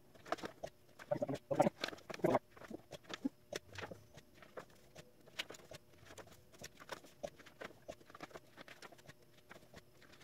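Pages of a book being turned by hand on a book scanner's platen: paper rustling and flapping in short bursts, loudest and busiest about one to two seconds in, then lighter scattered rustles and taps.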